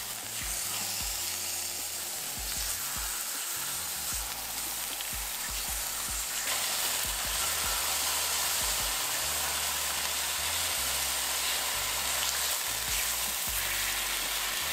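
Thin slices of marinated beef sizzling as they are laid with tongs into a hot, oiled cast-iron skillet to sear. The sizzle gets louder about six seconds in as more slices go in.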